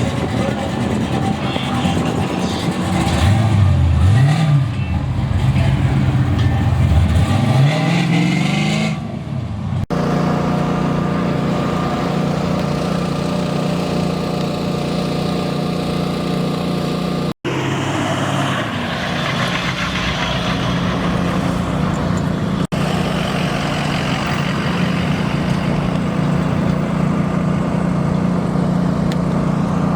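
A car engine revved up and down several times, then, after abrupt cuts, engines running at a steady idle.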